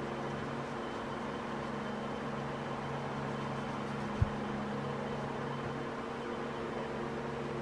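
Steady mechanical hum of a running machine in the workshop, with one short knock about four seconds in, as a plastic brush is set down on the bench.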